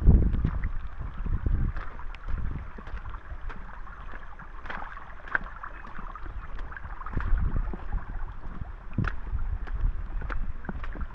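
Water running and splashing in a hissing stream, with gusts of wind buffeting the microphone in low rumbles near the start and again around the middle, and scattered small knocks.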